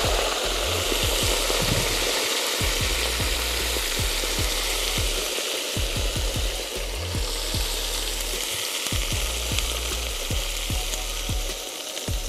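Water poured from a bowl into a hot cast-iron kazan of fried lamb and potatoes, sizzling and hissing hard as it hits the hot oil and metal. The sizzle eases gradually as the water goes in. This is the water being added so the dish can steam and braise.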